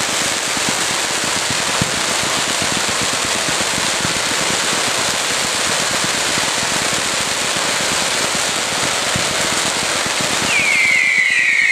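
Fireworks crackling: a dense, continuous stream of rapid small pops from crackling stars and spark fountains. Near the end, a loud high whistle comes in, falling slowly in pitch.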